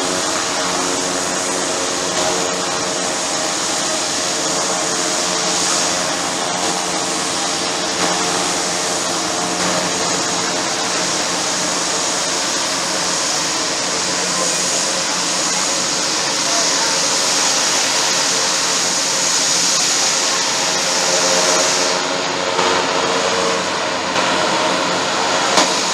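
Twin Huey (Bell 212) helicopter's twin turboshaft engines and rotors running through lift-off and a low hover: a steady high turbine whine over the rotor noise, with many steady engine tones beneath. Near the end the high whine drops away as the helicopter flies off.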